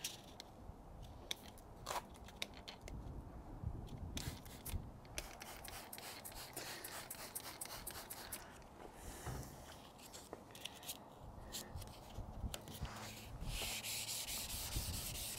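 Water spritzed from a trigger spray bottle onto a car's painted fender, with scattered clicks and a short hiss of spray. Near the end a sanding block with 1200-grit wet-and-dry paper starts rubbing back and forth over the wet paint in quick strokes: wet sanding.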